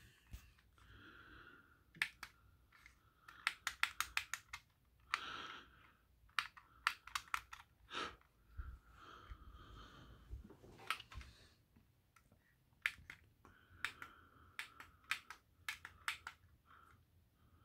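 Buttons on a small plastic handheld remote for battery LED lights, clicked faintly over and over in quick runs of several presses with short pauses between.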